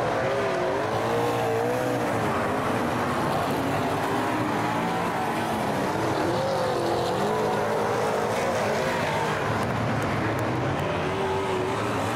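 A pack of V8 super saloon dirt-track race cars racing flat out around a dirt oval. Several engine notes overlap, rising and falling as the cars rev through the turns.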